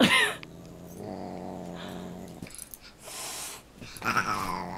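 A Siamese cat and a large dog play-fighting: a short high cry falling in pitch at the start, a low steady growl about a second in, a brief burst of hissing noise a little after three seconds, and another falling cry near the end.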